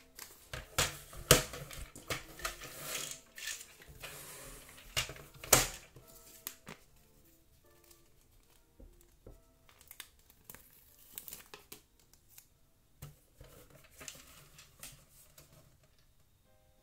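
Hard plastic clacks and knocks as a Hasbro Battleship game unit is handled, turned over and set down, with rustling between the knocks; the sharpest knocks come in the first few seconds. Later come softer crinkling and ticking as a paper label is peeled from a sticker sheet, over faint background music.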